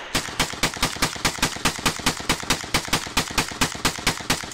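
Rapid gunfire: a long string of evenly spaced shots, about six a second, that stops abruptly at the end.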